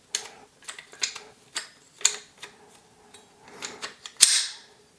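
AR-15 parts clicking and knocking as they are worked together, with a sharp metallic snap about four seconds in as a part locks into place.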